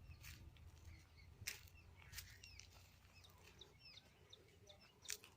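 Faint chirping of small birds: many short, high calls, with four sharp clicks spread through.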